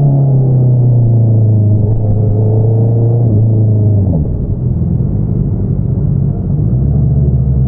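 2022 Honda CBR650R's inline-four through an Akrapovič single-outlet exhaust. The engine note falls slowly, drops away about four seconds in as the throttle closes, and settles to a low, steady run near the end.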